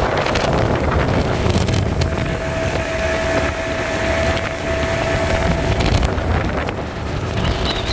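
Outboard motor running steadily at speed on a small open fishing skiff, with water rushing past the hull and wind buffeting the microphone.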